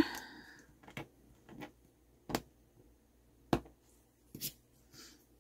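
X-Acto craft knife cutting a thin plastic folder sheet on a self-healing cutting mat, heard as a handful of sharp, irregular clicks spaced about half a second to a second apart.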